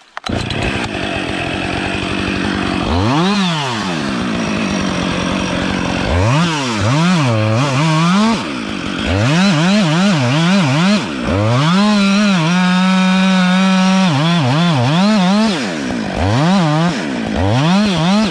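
Two-stroke chainsaw running and cutting into a small tree trunk. The engine is revved up and down again and again, and held at steady full throttle for about two seconds about two-thirds of the way through.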